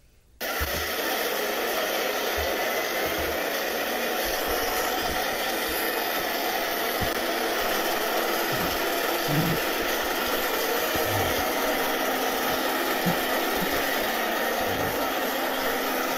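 Steady, loud static-like noise, like a hair dryer, with scattered soft low thumps; it is the soundtrack of a glitch-effect video played through a browser, starting abruptly half a second in.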